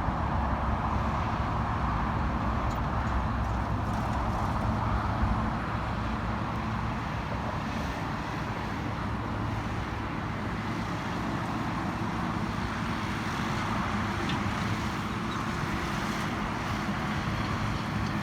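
Case IH Puma 160 tractor's diesel engine running steadily as it pulls a Lely Welger round baler through the hay, a low engine hum under a wider mechanical noise, a little louder for the first five seconds or so.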